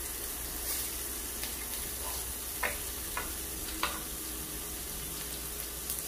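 Sliced pork sizzling on an electric tabletop grill plate: a steady frying hiss, with a few short clicks near the middle.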